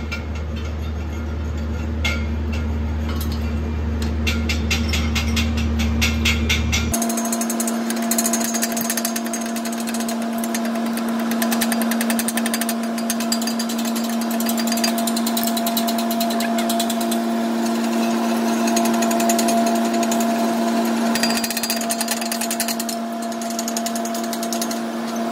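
Chipping hammer rapping slag off a freshly laid stick-weld bead on steel plate: a fast run of sharp metallic clicks. Near the end, a wire brush scrubs the cleaned bead. A steady hum runs underneath, and a low rumble stops abruptly about seven seconds in.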